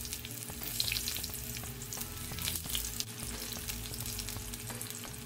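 Eggplant slices frying in hot oil in a pan: a steady sizzle with many small crackles.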